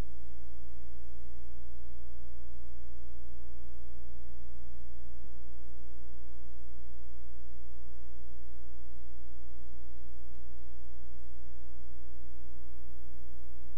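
Steady electrical mains hum: a low, unchanging hum with a stack of overtones.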